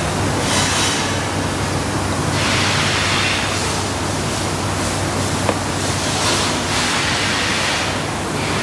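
Steady factory-floor background noise: a broad hiss over a constant low hum. The hiss swells and fades every few seconds, and there is one sharp click about five and a half seconds in.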